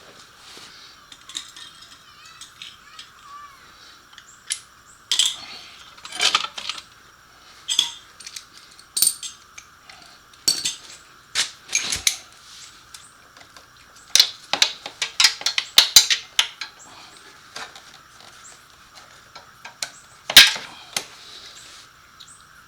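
Hand tools and metal parts clinking and clicking irregularly, wrenches and sockets working on motorcycle exhaust hardware, over a faint steady hiss.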